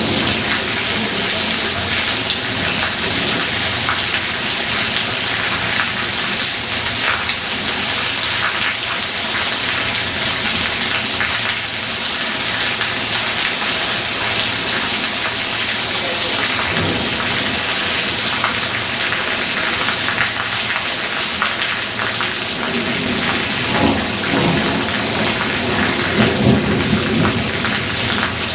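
Heavy downpour in a thunderstorm: a steady, dense hiss of rain, with a low rumble of thunder swelling near the end.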